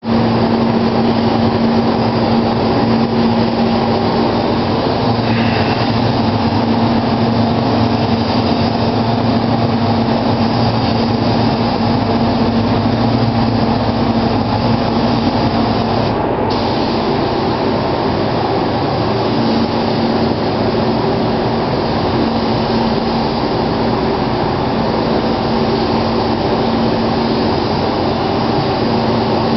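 Compressed air hissing steadily through an automotive paint spray gun as clear coat is sprayed onto a car body, over the steady hum of a paint booth's ventilation fan. The hiss breaks off briefly a little past halfway, then resumes.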